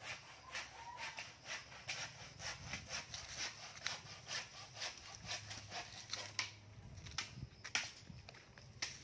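Footsteps crunching on dry leaves and twigs, a quick irregular series of short crackles.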